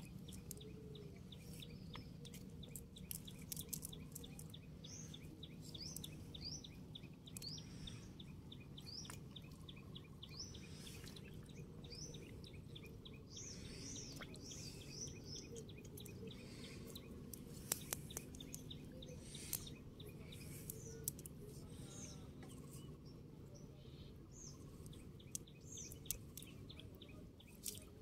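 A small bird chirping over and over: short high calls about once a second, more crowded in the middle. Under it run a faint fast ticking and a low steady rumble of outdoor ambience, with a few sharp clicks.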